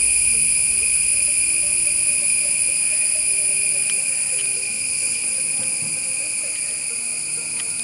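Steady, high-pitched drone of a chorus of insects, with a few faint clicks from handling.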